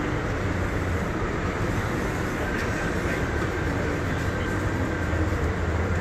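Steady low rumble of outdoor city background noise, with no distinct events.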